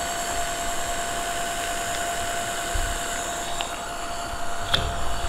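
Handheld hair dryer running steadily with a fixed whine, blowing hot air onto a rubber cover on the van roof to loosen it. There is a short click near the end.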